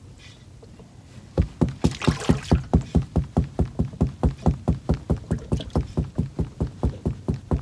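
Rapid, even knocking, about five knocks a second, starting about a second and a half in.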